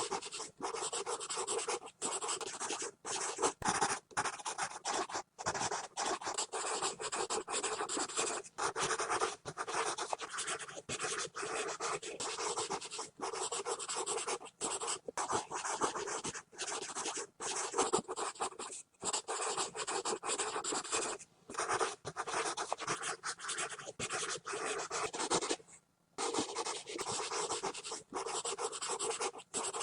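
Pencil scribbling on paper: quick rough scratching strokes with brief lifts between them and a pause of about a second near the end.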